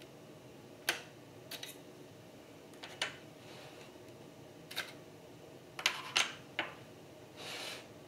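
Sharp, irregular clicks and light knocks from the bare internal core of a 2013 Mac Pro being handled and turned on a table, with a cluster of clicks about six seconds in and a soft short rush of noise near the end.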